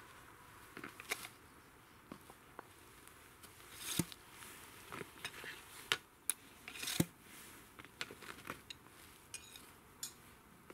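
Scattered clinks, clicks and knocks of metal carp-fishing gear being handled and fitted together, with a few louder knocks about four, six and seven seconds in, and rustling in between.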